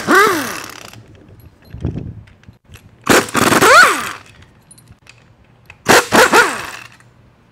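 Pneumatic impact wrench hammering in three short bursts, one at the start, one about three seconds in and one about six seconds in. Each ends with the air motor's whine falling away as the trigger is let go. The wrench is running bolts out of a Ford 4R70W automatic transmission's case.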